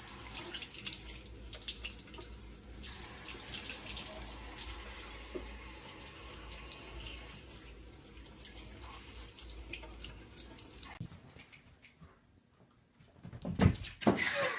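Water running steadily, like a tap into a sink, for about eleven seconds, then breaking off.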